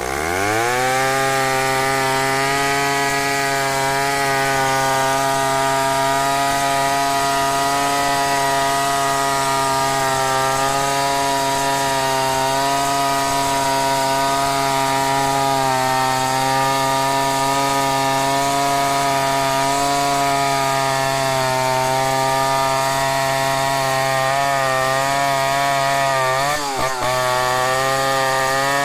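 Stihl 070 two-stroke chainsaw revving up to full throttle, then running steadily under load as it rips lengthwise along a log to mill a plank. Near the end the engine note briefly dips and wavers, then picks back up.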